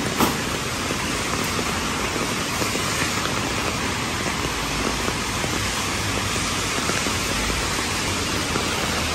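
Steady rain falling on a wet city street, an even hiss, with a single short knock just after the start.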